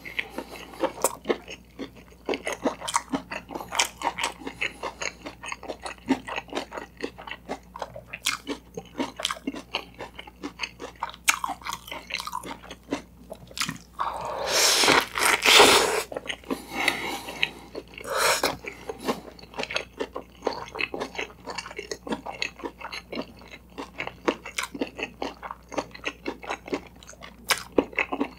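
Close-miked chewing of a toasted bread sandwich filled with sausage and shredded cabbage: a steady run of small crunching and chewing clicks, with a longer, louder crunching bite about fourteen seconds in.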